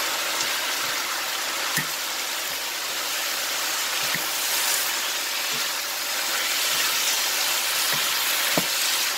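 Bean sprouts and pork sizzling in a hot frying pan, stirred with a wooden spatula that knocks lightly against the pan a few times.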